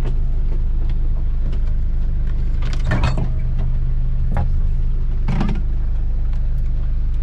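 A steady, low engine drone, with a few short clatters and knocks about three seconds in and again at about five and a half seconds.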